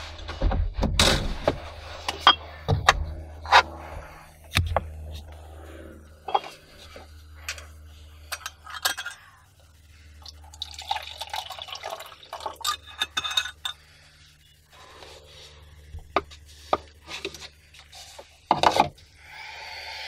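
A drink being handled and poured into a plastic cup: a run of sharp clicks and knocks, then liquid pouring for a couple of seconds, and a louder knock near the end.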